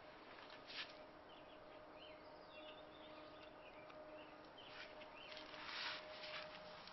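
Faint birds chirping in the background, with a few short rustling noises, the longest about six seconds in, over a faint steady hum.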